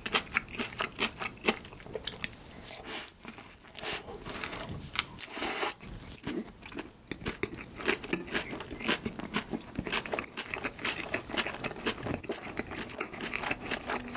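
Close-miked chewing of a soft bread bun filled with sausage and corn salad: a steady run of small irregular mouth clicks and smacks.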